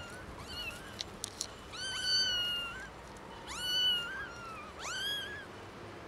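Young kittens meowing loudly: two short meows, a few sharp clicks about a second in, then three long, high meows that each rise and then hold for about a second.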